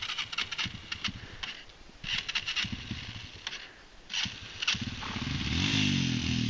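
Scattered clicks and rustles, then about five seconds in, trail motorcycle engines come in, revving up and down and growing louder as the bikes climb a rocky track toward the microphone.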